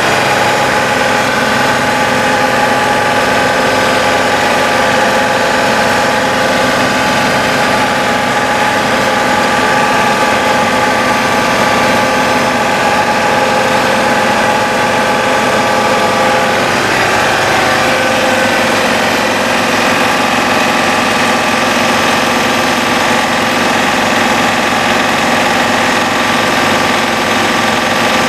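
2011 John Deere 2520 compact tractor's three-cylinder diesel running at raised revs and driving its front-mounted snowblower, heard inside the cab, where it is loud. The engine note shifts a little past halfway.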